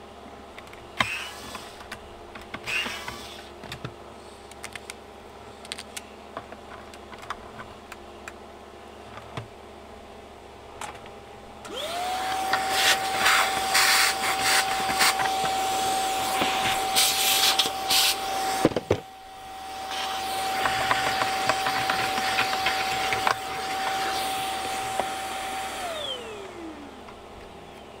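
Vacuum cleaner running with a steady motor whine and a rush of suction as its hose nozzle sucks debris out of a stripped-down vacuum cleaner's plastic body. It starts a little under halfway in, dips briefly, then is switched off near the end, its whine falling in pitch as the motor spins down. Short bursts of a cordless screwdriver come in the first few seconds.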